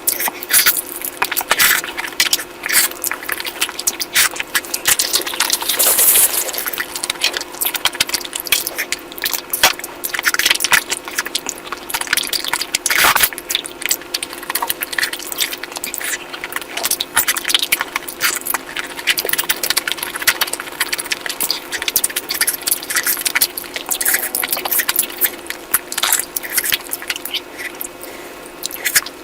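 Wet eating sounds of curry: a dense run of squishy, smacking clicks of food being handled and chewed.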